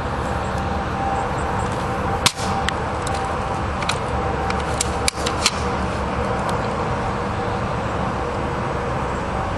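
Airsoft M14 rifle firing single shots: two sharp cracks about two and five seconds in, with a few fainter clicks around them, over steady background noise.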